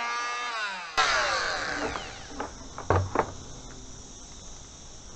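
Parkside oscillating multi-tool winding down after cutting through a piece of wood, its whine falling in pitch. A sharp click about a second in is followed by a second falling whine that dies away, then a few light knocks.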